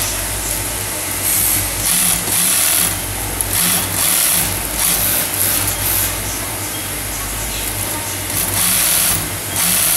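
High-head wig sewing machine stitching hair wefts onto a wig cap in short runs: repeated bursts of rapid stitching over the steady hum of its motor.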